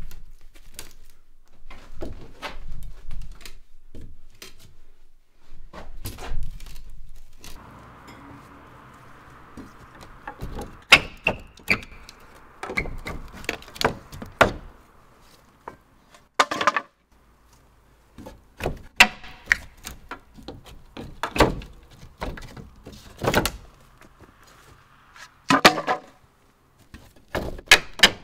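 Hammer blows on old wooden logs and boards: irregular sharp knocks with short pauses between them.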